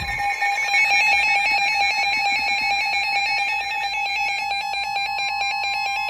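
Several NOAA weather radios sounding their electronic alert alarms at once for a severe thunderstorm warning: overlapping rapid beeping and warbling tones. A second steady tone joins about four seconds in.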